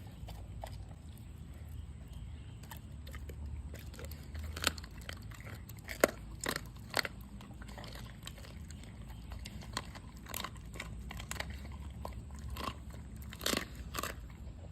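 Dogs chewing a raw meal of meat and bone, with irregular wet crunches and a few sharp cracks, loudest around the middle and near the end.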